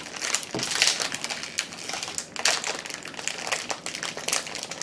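Plastic candy bag crinkling and crackling as it is handled and pulled open, with many quick sharp crackles.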